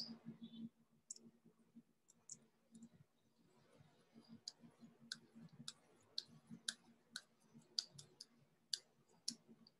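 Faint clicks of a computer mouse, a few scattered at first and then about two a second from about four seconds in, over a faint low hum.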